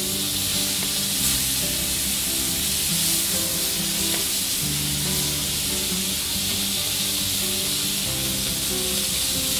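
Beef tenderloin steaks sizzling steadily in butter in a frying pan, just turned over, with background music underneath.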